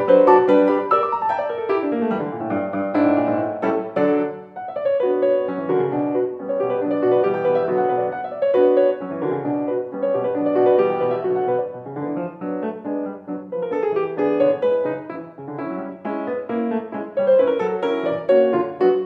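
Solo grand piano playing a classical piece, a continuous stream of notes with a brief lull about four and a half seconds in.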